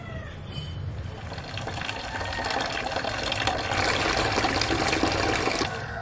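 Water running from a tap and filling a container, growing louder as it goes and cutting off suddenly near the end.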